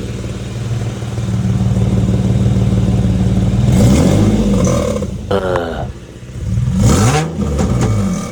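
Infiniti engine idling, then revved briefly twice, each rev rising and falling back to idle. The exhaust is leaking at the test-pipe joint, where a flange bolt is missing and the gasket is damaged.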